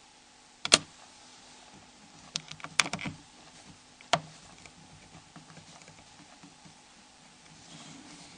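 Plastic snap clips of a Nokia N73's front cover clicking open as a plastic opening tool is slid along the housing edge. One sharp click, then a quick run of clicks two to three seconds in, and another click about four seconds in.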